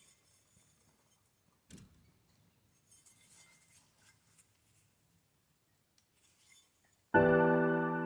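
Near silence with a few faint knocks, then piano music with held chords starts suddenly about a second before the end.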